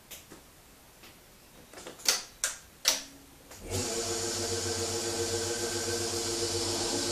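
Relays or contactors in a BMW 840Ci electric conversion clicking several times as the system is switched on, the loudest three clicks about two to three seconds in. About a second later a steady electric hum and hiss starts and keeps running, with a faint rising whine near the end.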